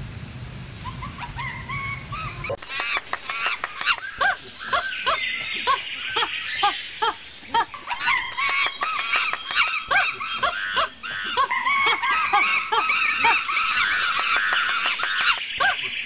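A group of ring-tailed lemurs calling: a dense chorus of short chirping calls that rise and fall, several a second. It starts about two and a half seconds in, after a low hum with a few faint chirps.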